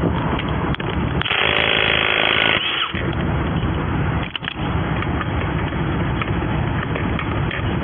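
An impact wrench runs in one burst of about a second and a half on a wheel's lug nuts, over steady roadside traffic noise, with a few sharp clicks of tools and parts being handled.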